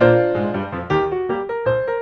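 Background piano music: a full chord struck at the start, followed by a quick run of single notes.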